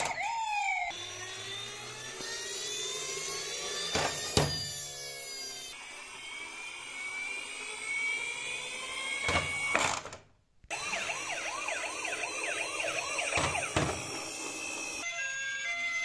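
Electronic siren sounds from battery-powered toy emergency vehicles, several different siren patterns one after another: slow repeating rising sweeps, then a fast up-and-down wail after a short break about ten seconds in. A few sharp knocks come in between.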